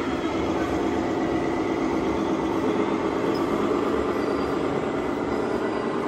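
Radio-controlled scale model trucks driving, a steady mechanical rumble with a faint, steady high whine.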